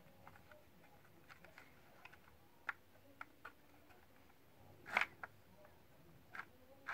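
Scattered light clicks and taps from hands handling the opened electric pencil sharpener's plastic housing and cutter, with the loudest knock about five seconds in. The sharpener's motor is not running.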